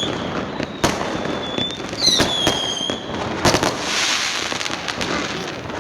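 Fireworks going off: a run of sharp bangs, a whistling rocket whose pitch falls about two seconds in, and a crackling burst around four seconds in.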